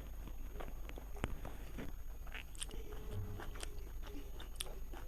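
A person chewing a mouthful of food, with scattered short wet clicks and smacks of the mouth.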